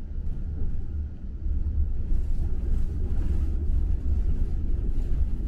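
Low, steady rumble of a moving vehicle heard from inside its cabin.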